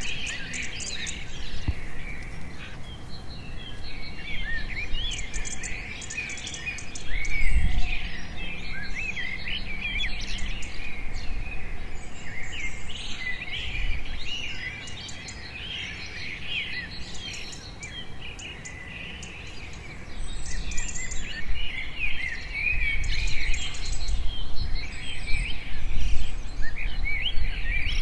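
A chorus of many wild birds chirping and calling at once, dense overlapping short chirps, with low handling noise and a single thump about seven seconds in.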